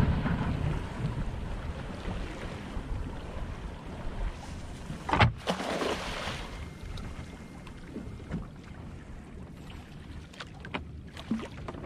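Wind and water noise around a small open panga, fading gradually, with a sharp knock about five seconds in followed by a short rush of noise.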